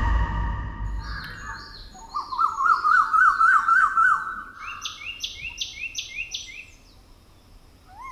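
Music dying away in the first second, then birds singing: a fast warbling call that rises and falls about four times a second over higher chirps, followed by a run of five quick high chirps. The birdsong thins out near the end.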